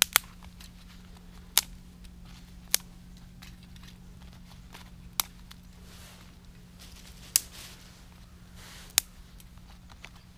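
Small dry sticks snapped by gloved hands as kindling, six sharp separate cracks spread over about ten seconds, with soft rustling of twigs and gloves between them.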